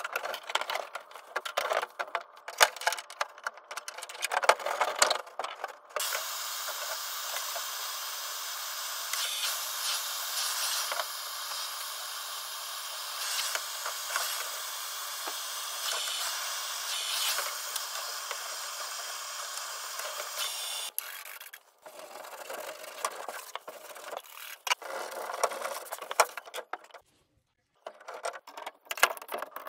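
Handheld gas torch hissing steadily for about fifteen seconds while it heats a copper pipe joint on a shower valve. Before and after the hiss come quick clicks and rattles of metal parts handled at the valve.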